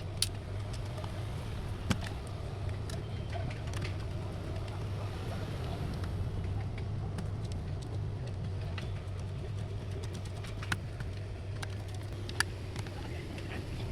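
A steady low hum with scattered sharp clicks and taps over it, four of them louder than the rest.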